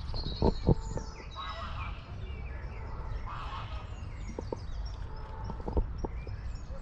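Waterfowl calling, most likely geese, with small birds chirping and a steady low rumble of wind. A few short knocks stand out, the loudest pair about half a second in and more later.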